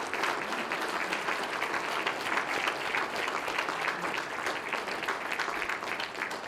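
Audience applauding steadily, a dense clapping of many hands at the end of an acceptance speech.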